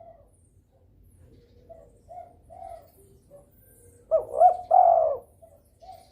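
Derkuku dove in breeding condition cooing: a few soft low coos, then a loud three-part coo phrase about four seconds in, followed by softer notes.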